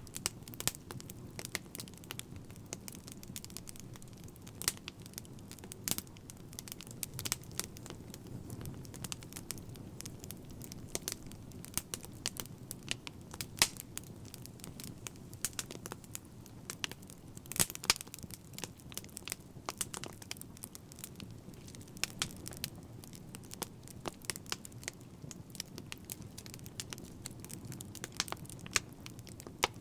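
Wood fire crackling: irregular sharp pops and snaps, several a second, over a steady low rumble of the flames.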